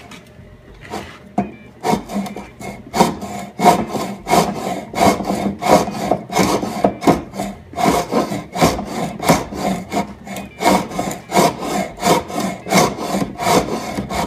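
Stanley Bailey No. 3 hand plane scraping along pallet wood in quick back-and-forth strokes, about two a second, starting about two seconds in. Its blade is dull, rusted and pitted and is clogging, so the plane digs in and cuts poorly instead of taking clean shavings.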